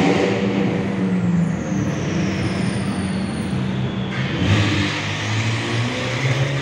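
Twin-turbo V8 of an orange McLaren supercar running at low revs as it drives slowly past through a tunnel, its loud engine note echoing off the walls and stepping up and down in pitch. A thin high whine slides down in pitch over the first few seconds.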